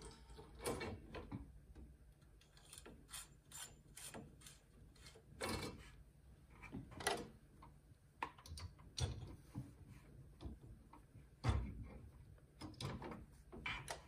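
Light, irregular clicks and knocks of a knitting machine's cast-on comb and hanging weights being hooked onto the fabric, with a couple of louder thuds about nine and eleven and a half seconds in.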